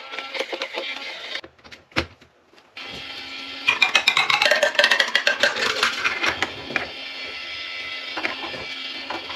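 Marbles clattering down a marble run's track in quick clicks, with pitched notes and steady music over them. The clatter is busiest a little past the middle.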